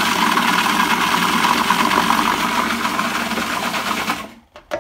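Countertop blender running steadily as it purées chunky wet puppy food into a smooth mousse, then switching off about four seconds in. A short click follows near the end.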